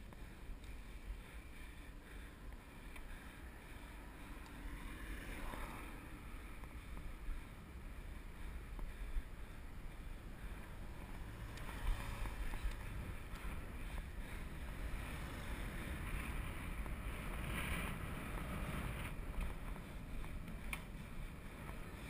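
Wind buffeting a bicycle-mounted GoPro's microphone while riding, with a steady low rumble from the road. A car passes close by about twelve seconds in.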